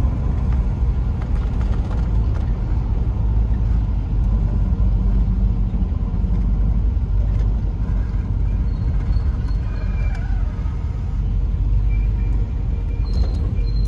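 A 1955 Chevrolet being driven, heard from inside its cabin: steady, deep engine and road noise.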